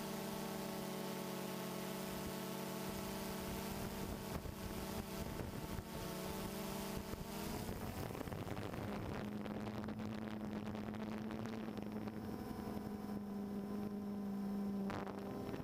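DJI Phantom 2 quadcopter's motors and propellers whining steadily in flight, heard close up from the camera it carries. About halfway through, the pitch wavers and shifts as the motors change speed, then it settles into a new steady hum.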